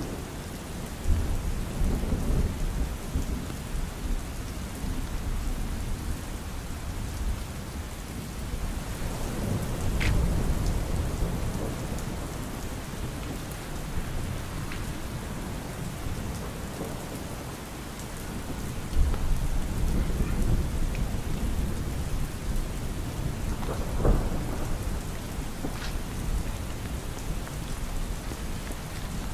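Steady rain falling on an umbrella, with a few sharper single drops striking it. Low rumbles of thunder swell about a second in, around ten seconds in, and again for several seconds in the last third.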